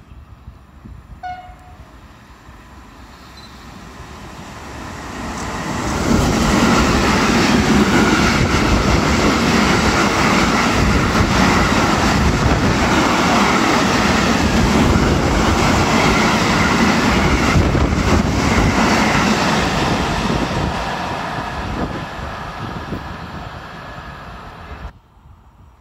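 Electric freight train hauled by an E494 locomotive passing close at speed: a brief horn note about a second in as it approaches, then the rumble builds and the loud rush and clatter of tank wagons rolling past lasts about fifteen seconds before fading, cut off abruptly near the end.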